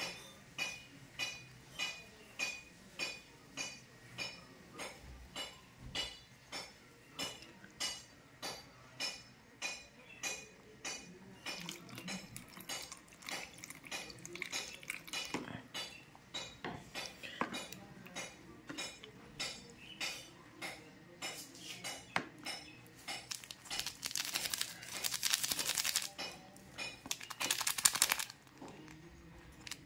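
Light metallic clinks in a steady rhythm, about two a second, as a coin is handled over a plastic tub; the clinks grow irregular in the second half. Near the end there is a louder crinkling hiss and a sharp tear as a plastic sachet is handled and torn open.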